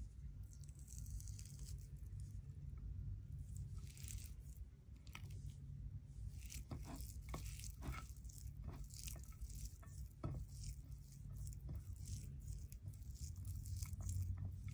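Fingers mixing steamed rice with fried chicken pieces on a plate: soft squishes, scrapes and small clicks, coming thickly from about four seconds in, over a low steady hum.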